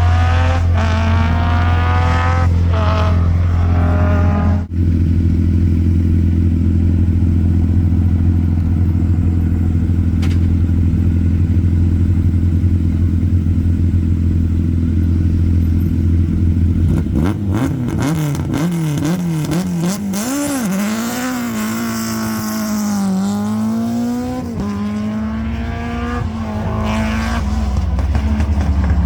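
Historic rally car engine at a stage start: revved a few times, then idling steadily, and about two-thirds of the way through it pulls away, the engine pitch rising and falling through the gears.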